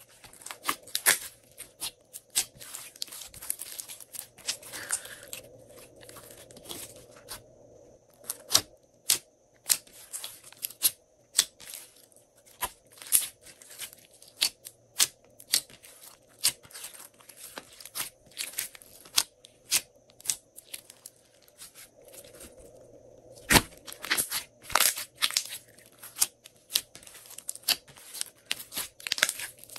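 Glossy slime being squeezed, pressed and stretched by hand, giving a close, irregular stream of sharp wet clicks and air-bubble pops, with the loudest pops about three quarters of the way through.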